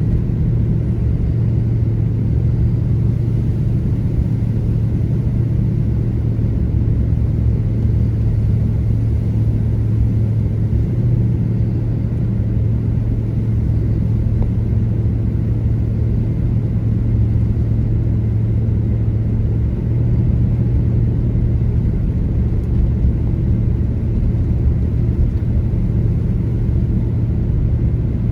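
Steady low rumble inside a car's cabin while driving: tyre and engine noise on a snowy road, unchanging throughout.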